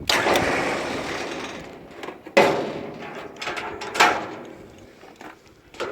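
Four heavy clanks or bangs a second or two apart, each hitting sharply and then dying away; the first is the loudest and rings on longest.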